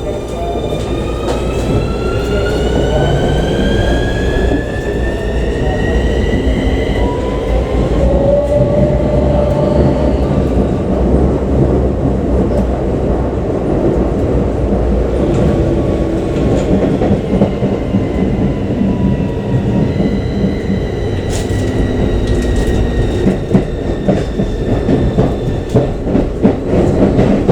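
Ride inside a Keikyu New 1000 series electric train: the motor inverter whine climbs steadily in pitch over the first several seconds as the train gathers speed, over a constant rumble of wheels on track. Later a steady whine returns, and rail-joint clicks come in quick succession near the end.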